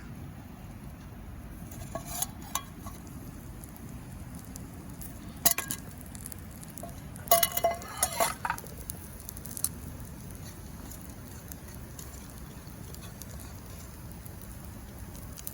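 Camp cookware and utensils clinking: a few light metal-on-metal clinks about two seconds in, another about five and a half seconds in, and a denser cluster around seven to eight seconds, over steady low background noise.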